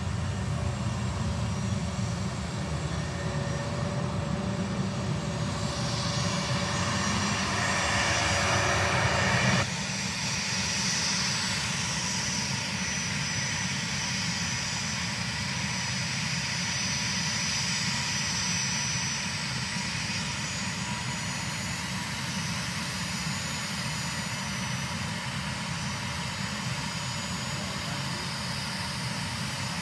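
A-10 Thunderbolt's twin turbofan engines running: a rushing roar with rising hiss builds for about nine seconds, drops off suddenly, and continues as a steadier rush with a faint high whine.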